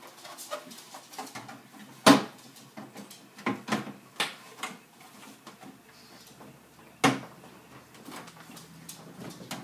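SodaStream drink maker parts being handled and fitted together: a run of small clicks and knocks, with two sharp knocks about two seconds and seven seconds in.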